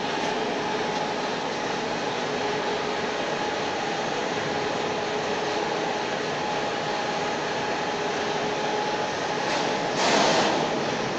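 Steady mechanical drone of machinery in a factory hall, with a constant whine, and a brief louder rush of noise about ten seconds in.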